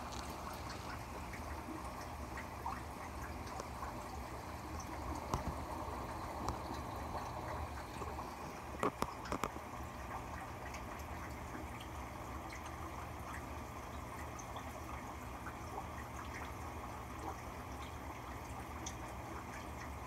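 Aquarium water trickling and bubbling steadily over a low hum, with scattered small drip-like ticks and a short run of sharper clicks about nine seconds in.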